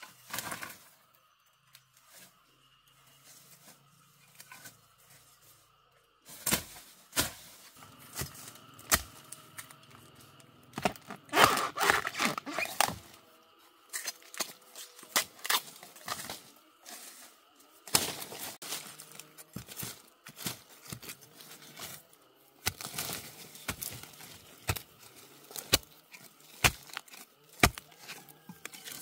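Irregular sharp cracks, snaps and tearing noises in clusters with short pauses, starting a few seconds in and loudest about halfway through.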